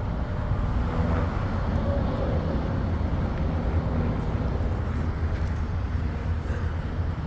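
Chainsaw engine running steadily at idle, a low even drone with no revving or cutting.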